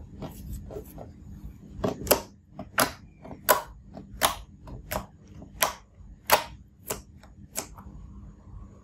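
Fingers pressing into glossy slime and pulling out again, each press giving a sharp, wet pop of air. There are a few faint clicks at first, then about ten loud pops, one roughly every 0.7 s.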